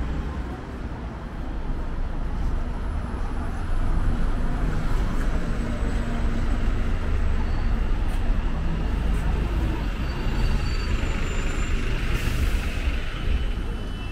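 Road traffic with a red double-decker bus passing close by, its engine running low and steady and getting louder a few seconds in; a short hiss near the end.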